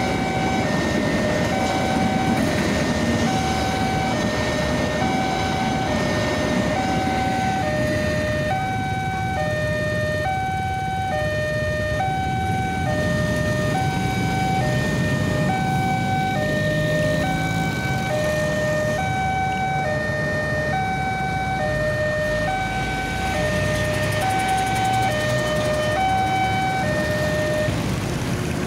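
Railway level-crossing alarm sounding an electronic two-tone chime, a higher and a lower note alternating over and over at an even pace, stopping near the end. Underneath runs the low noise of the passing train and then of road traffic moving off.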